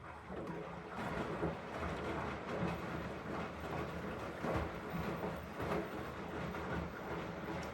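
Elin washing machine, a Beko-built model, running its rinse cycle: a steady rumble of the turning drum with laundry and water, with irregular louder knocks about once a second.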